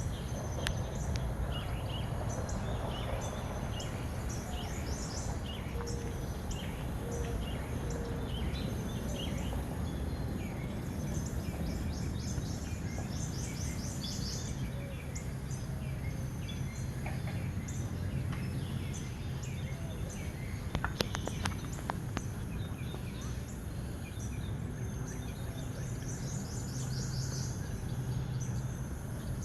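Several birds chirping and calling, some in quick repeated series, over a steady low hum. A few sharp taps come about two-thirds of the way through.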